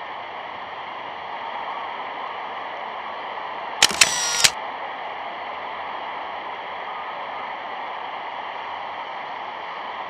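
Steady hiss of an old optical film soundtrack, broken about four seconds in by a short loud buzz under a second long, with a sharp click at each end.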